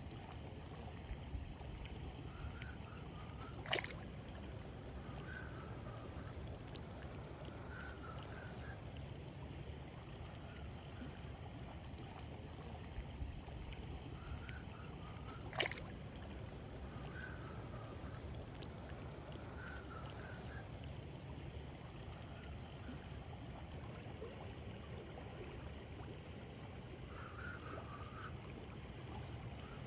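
Shallow river water running steadily over stones, with two sharp clicks, one about four seconds in and another about sixteen seconds in.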